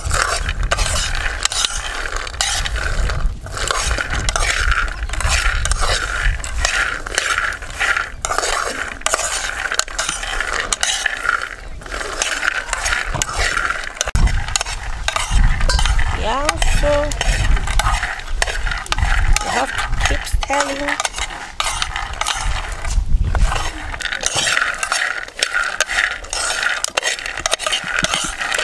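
Raw groundnuts being dry-roasted in a metal saucepan and stirred with a metal spoon: a continuous rattle and scrape of nuts and spoon against the pan.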